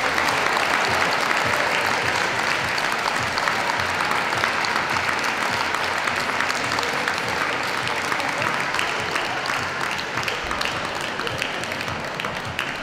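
Audience applauding steadily, slowly dying down over the last few seconds.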